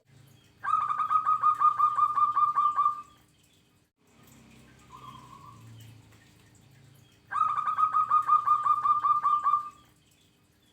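Zebra dove (local perkutut) singing two song phrases. Each is a fast run of a dozen or so short, clipped coo notes lasting about two and a half seconds, with a single faint note between them.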